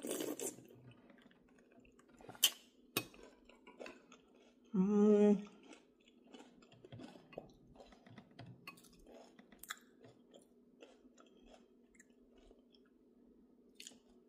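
A person chewing a spoonful of food with soft wet mouth clicks and smacks. There are a couple of sharp clicks between two and three seconds in, and a short hummed "mm" about five seconds in.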